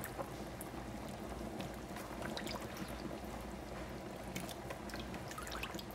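Pot of soup boiling, a steady bubbling with scattered small pops and splashes as pieces of potato are dropped into the broth.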